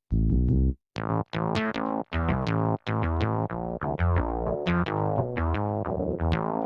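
KORG Pa700 arranger keyboard playing its factory sounds: a deep bass tone for under a second, then from about a second in a bright plucked synth-like sound playing quick notes with sharp attacks that die away.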